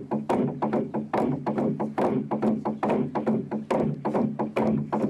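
Intro music with a fast, uneven beat of sharp percussive strikes over a steady low tone.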